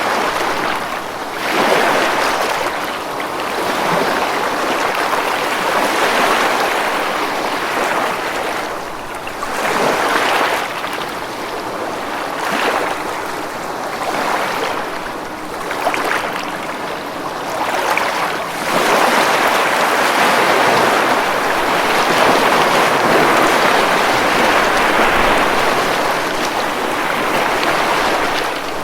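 Ocean waves breaking and washing up on a beach, one surge every few seconds, with a longer, louder wash near the end.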